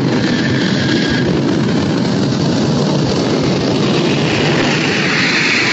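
Jet engine of a jet-powered van running under power with its afterburner lit, a loud steady rushing noise that grows brighter toward the end.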